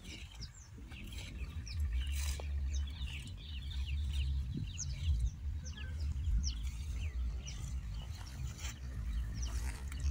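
Many birds chirping, with short quick calls overlapping throughout, over a low rumble that comes up about two seconds in.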